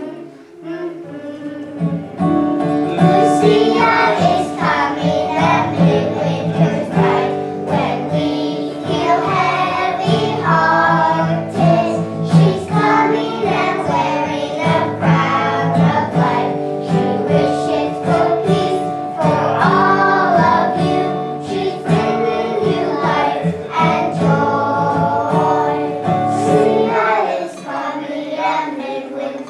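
Children's choir singing a song with instrumental accompaniment; the low accompaniment drops out a couple of seconds before the end while the voices carry on.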